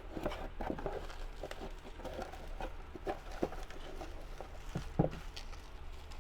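Hands handling the necklace's packaging: irregular taps, clicks and short rustles, with a sharper knock about five seconds in, over a steady low hum.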